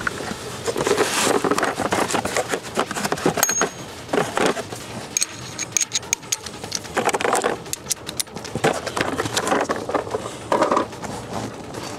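Hand tools working on the gas pedal assembly's two 10 mm mounting bolts under a car's dashboard: irregular metallic clicks, clinks and knocks, with rustling as parts are handled.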